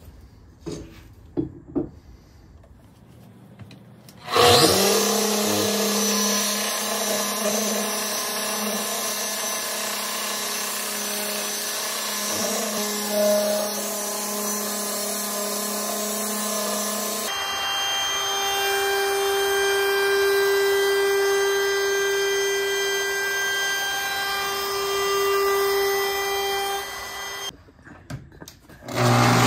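A few light knocks, then an electric random orbital sander starts about four seconds in and runs steadily on solid birch stair treads with 120-grit abrasive. Its tone changes about two thirds of the way through and it stops near the end, just before another power tool starts up.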